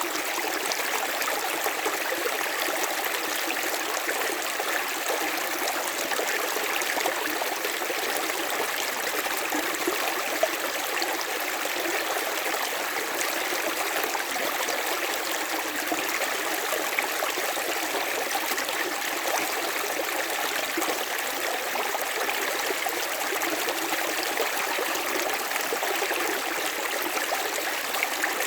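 A river flowing steadily over rocks: continuous rushing and splashing of running water, with no change in strength.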